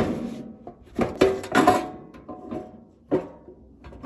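Seat and bed panels of a Kawasaki Mule Transformer utility vehicle being folded and latched by hand: a series of sharp clanks and knocks, about six, several ringing briefly.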